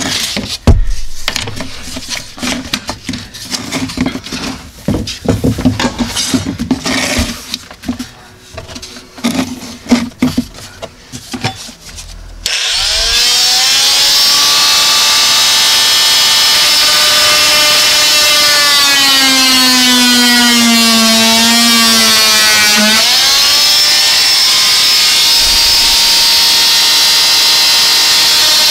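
Irregular knocks and clicks of handwork, then about halfway through a power saw starts abruptly and runs steadily, cutting wood, its pitch sagging and recovering once under load.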